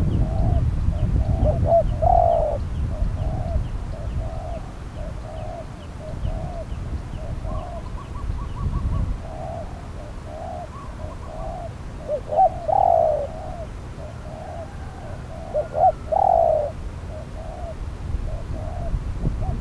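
Spotted doves cooing: a steady run of short, low coos about twice a second, with a louder, longer coo about two, twelve and sixteen seconds in. Faint high chirps of smaller birds sit behind them, and a low rumble runs under the first half.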